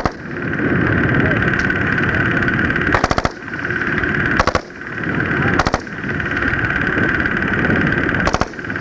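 Steady whir with a constant high hum, typical of a Super 8 sound film's running camera and track noise. It is broken by short bursts of rapid clicks about three seconds in, near the middle, and again near the end.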